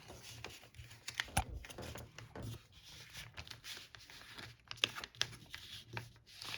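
A sheet of paper being folded and creased by hand: scattered rustling and crinkling with a few sharp taps and clicks.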